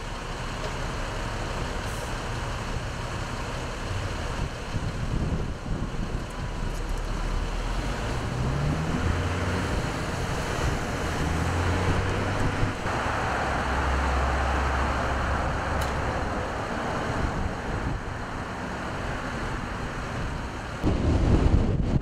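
Street traffic: road vehicles running and passing, with a heavy vehicle's engine climbing in pitch and changing up about halfway through. Near the end, strong wind buffets the microphone.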